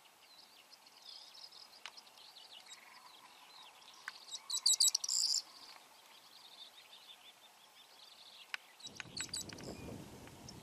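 Birds chirping and calling in open wetland, with a loud burst of rapid chirps about halfway through. A low rushing noise joins in near the end.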